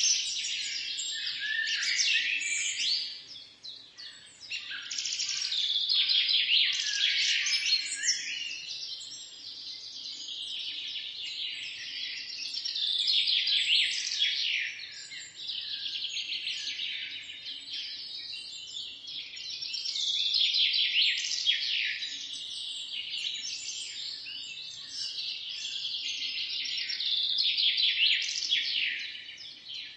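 A dense chorus of small birds chirping and singing over one another, swelling and fading in waves, with a brief lull about three to four seconds in.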